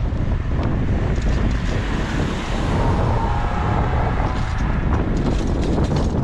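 Wind rumbling on the microphone of a cyclist's camera while riding, over the tyre and engine noise of street traffic. The traffic noise swells about two seconds in as a car goes by, then eases off.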